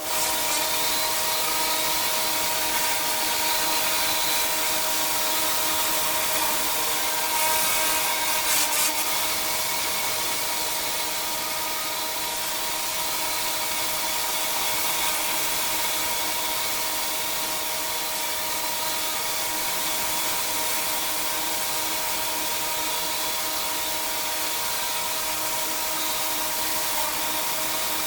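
Pressure washer running with water spraying at high pressure: a steady hiss over the constant drone of the machine's motor and pump, briefly rougher and louder about eight seconds in.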